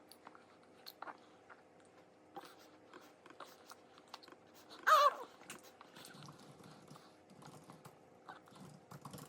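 A toddler eating: soft mouth and chewing noises with small scattered clicks, and one short, high-pitched squeal about five seconds in.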